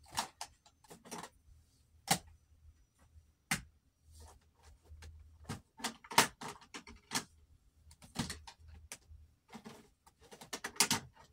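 Eyeshadow palettes being handled and stacked: irregular clacks and taps of the compacts knocking against each other and the vanity top, with a quick cluster of clicks near the end.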